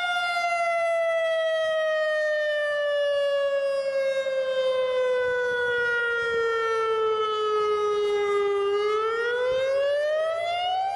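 A warning siren wailing: one long tone that slides slowly down in pitch for most of the time, then climbs back up near the end.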